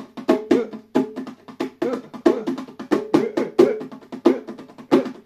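A pair of bongos played by hand in a steady rhythm, about three strokes a second, each hit ringing briefly on one of two drum pitches.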